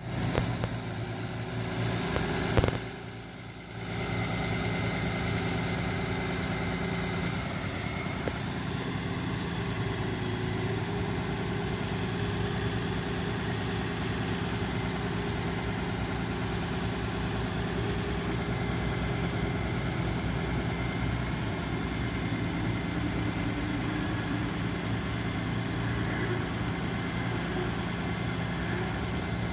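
Ford F-750 bucket truck's engine idling steadily, driving the hydraulic pump as the aerial boom is raised. A single sharp knock sounds about two and a half seconds in.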